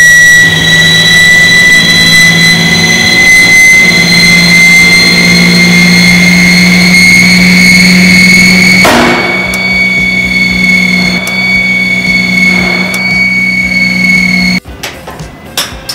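Rotation test rig spinning a large heavy-duty grinding wheel, with a loud whine climbing steadily in pitch as it speeds up. About nine seconds in there is a short, muffled noisy burst inside the armoured chamber: the wheel breaking at about 5,780 rpm, 2.3 times its working speed. The whine then holds level and cuts off suddenly near the end.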